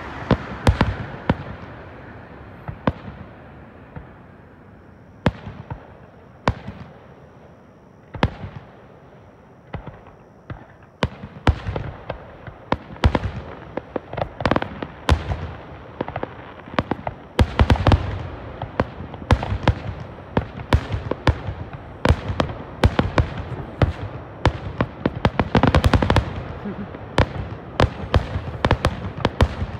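Aerial fireworks shells bursting: a few scattered bangs at first, then a quick run of many bangs from about ten seconds in.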